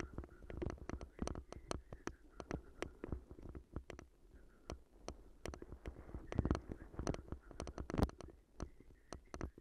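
Bicycle jolting over a rutted, muddy trail, picked up through a handlebar-mounted camera: irregular sharp knocks and rattles, several a second, with two harder jolts in the second half.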